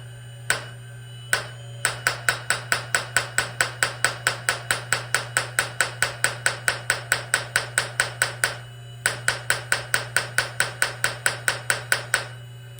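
Lesu scale-model jack hammer rapidly chipping at flat rock, about five sharp strikes a second in runs with a couple of short breaks, over a steady low hum. The strikes make little headway through the soft, inch-thick rock.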